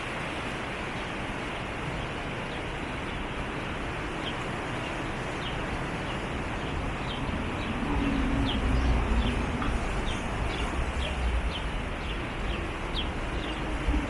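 Truckee River water rushing steadily, with a bird giving a string of short, high, falling chirps from about four seconds in. About halfway through, the low rumble of a passing vehicle swells up under the water.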